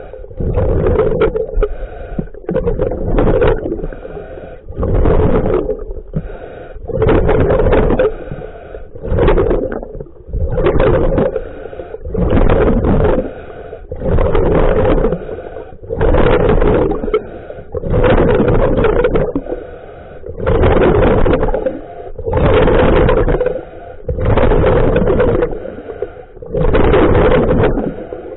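Scuba diver breathing through a regulator underwater: a steady rhythm of loud breath and bubble noise, one surge every second or two with short quiet gaps between.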